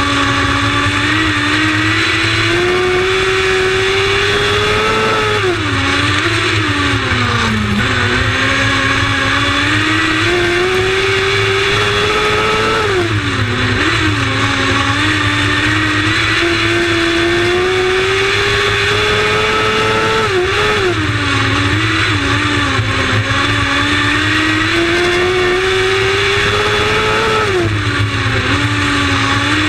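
Lightning sprint race car engines running hard around a track. The engine pitch climbs for several seconds, then drops sharply as the throttle lifts, and climbs again, about every seven seconds.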